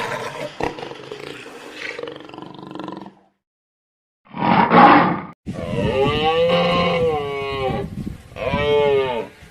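A run of animal calls from separate clips: a rough, noisy call for about three seconds, a break of silence, then a short loud burst and two drawn-out calls that rise and fall in pitch.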